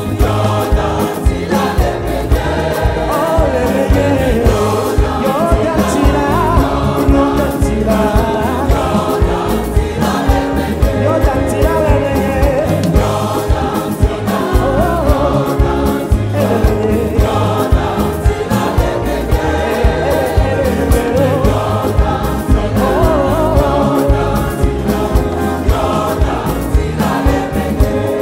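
Large mixed choir singing a highlife song live, backed by keyboards and drums with a steady beat.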